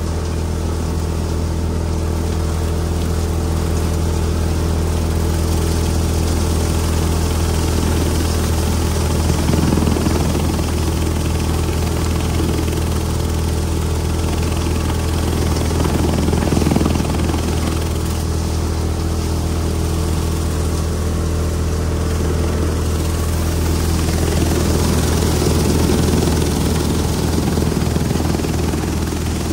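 Tractor-driven thresher threshing moong: the Swaraj tractor's diesel engine runs steadily at working speed under load, with the thresher drum turning, swelling louder three times.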